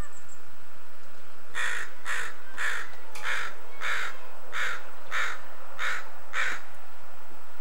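A crow cawing in a steady series of about nine harsh caws, roughly two-thirds of a second apart.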